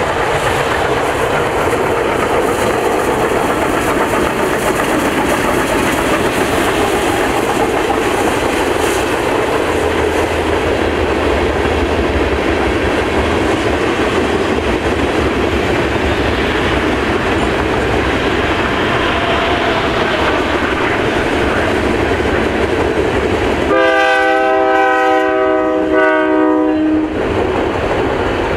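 A long freight train rolling past close by: a steady rumble and clatter of steel wheels over the rail joints as loaded tank cars and coaches go by. About three seconds before the end, a chorded train horn sounds for roughly three seconds.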